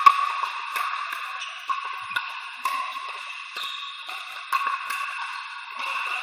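Pickleball paddles hitting a plastic ball in a rally: about nine sharp pocks, irregularly spaced half a second to a second apart, each echoing in a large indoor hall, the loudest right at the start. A steady high hum runs underneath.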